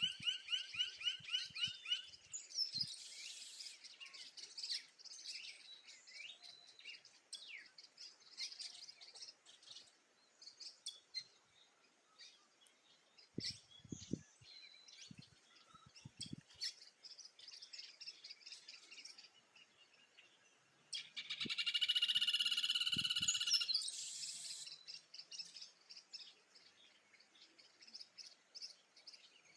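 Several wild birds chirping and singing in a dawn chorus, opening with a fast trill and with a loud stretch of dense song about three quarters of the way through.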